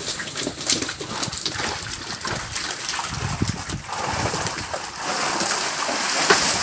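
Water splashing and a mass of small fish thrashing in a net hauled up against the side of a wooden boat, with many short slaps and knocks of fish hitting the deck. The splashing grows denser about four seconds in.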